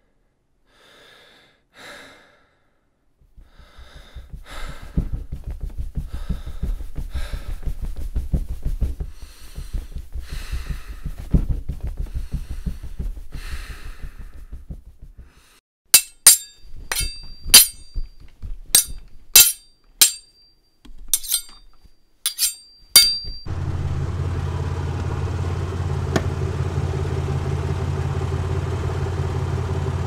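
Added sound effects over a black screen: a low rumble with crackling, then a run of sharp clanking hits, several with a short metallic ring. After that comes a steady deep engine-like hum.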